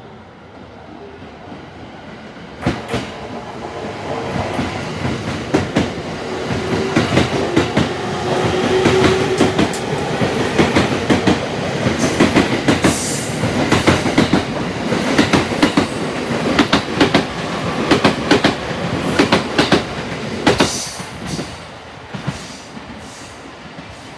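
A JR suburban electric train in green-and-orange Shonan livery running past along the platform track and on away. Its wheels clatter over the rail joints, building from about three seconds in and easing off near the end as the last cars go by, with a steady tone under the clatter in the first half.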